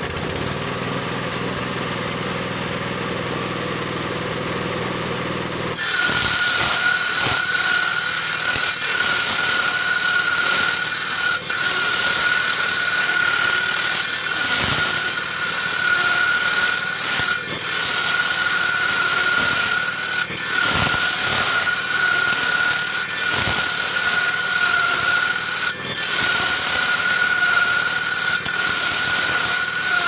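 Table saw's circular blade running free. About six seconds in it starts ripping thin wooden strips, which makes it louder, with a steady high whine over a hiss and a few brief knocks.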